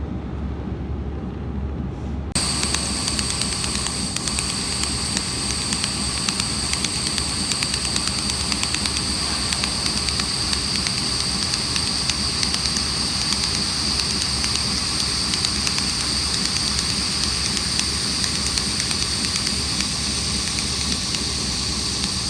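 A 300 W handheld laser welder starts welding 1 mm brass about two seconds in. It gives a steady high-pitched whine and hiss with a fine continuous crackle of spatter, over a low steady machine hum.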